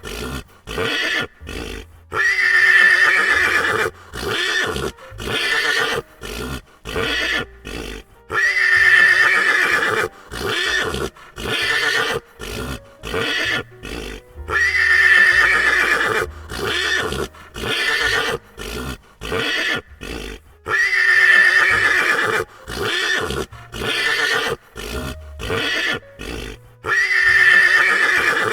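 Horse whinnying: a long, loud neigh about every six seconds, five times in the same way, each followed by a run of shorter choppy horse sounds with brief gaps between them.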